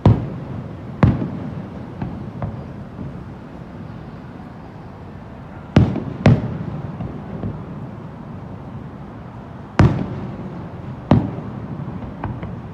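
Aerial fireworks shells bursting: about six loud bangs, each trailing off in a short low rumble, some coming in pairs close together, with a few fainter pops between.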